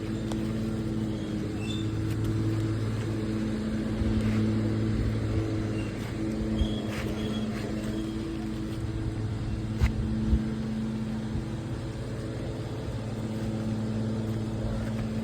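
A steady engine or motor hum at one unchanging pitch, swelling and fading, with a few sharp knocks partway through.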